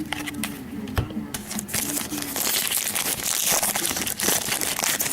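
Foil trading-card pack wrapper crinkling and rustling as it is handled, with a light knock about a second in.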